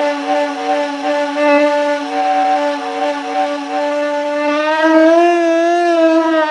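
Woolly mammoth trumpeting sound effect: one long, loud, held call that rises slightly and wavers in pitch near the end.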